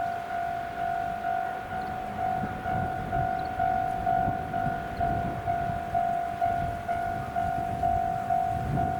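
Japanese level-crossing warning bell ringing, a repeated electronic clang about twice a second that warns a train is approaching, over a low rumble.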